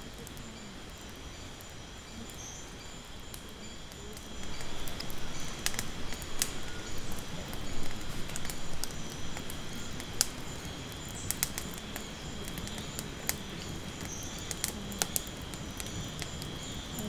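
Insects chirring steadily in a high, even drone. About four seconds in, a wood bonfire starts crackling under it, with a hiss and many sharp snaps and pops.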